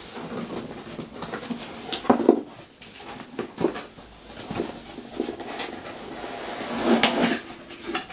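Cardboard box being opened by hand: irregular rustling and scraping of cardboard with short knocks, loudest about two seconds in and again near the end.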